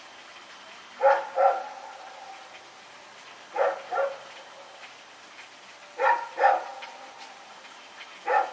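Belgian Malinois barking in pairs of two quick barks, the pairs about two and a half seconds apart, three times over, then a single bark near the end.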